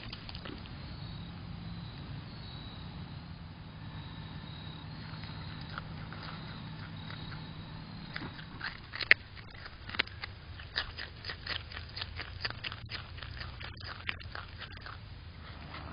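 Groundhog chewing fresh vegetables right at the microphone: quiet at first over a faint steady low hum, then from about halfway a run of sharp, irregular crisp crunches and bites.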